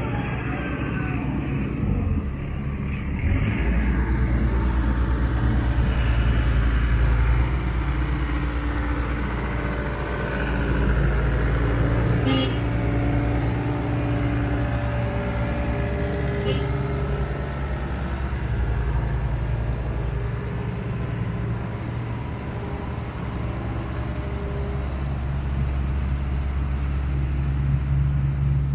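A diesel engine running steadily with a low rumble, from crawler excavators working a demolition site, with street vehicle noise around it.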